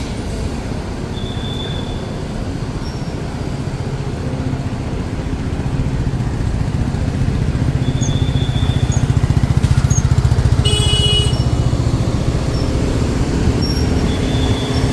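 Road traffic: a motor vehicle's engine hum swelling as it passes close, loudest about ten seconds in, then easing. A brief high-pitched beep sounds at the loudest point, with a few short faint high chirps scattered through.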